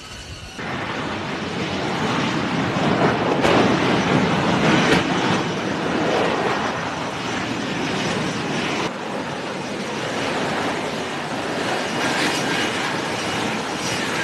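Jet noise from a fighter aircraft in flight: a loud, steady rushing that swells for a few seconds, with abrupt changes about half a second in and again near the middle where clips are cut together.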